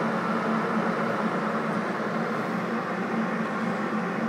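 A 3 kW electric kettle heating water, a steady rushing hiss as the water works toward the boil.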